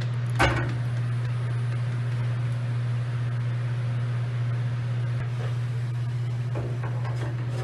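Steady low machinery hum with no change in level, with one short click about half a second in.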